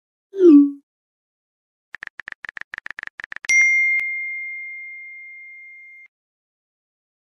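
iPhone Messages sound effects: a short downward whoosh as a message is sent, then a fast run of keyboard taps, about ten a second, for a second and a half. Then a single notification ding as a new message arrives, ringing out and fading over two or three seconds.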